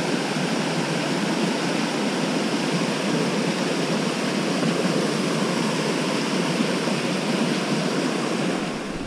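Small cascades of a rocky mountain trout stream rushing steadily over boulders into a pool, loud and close.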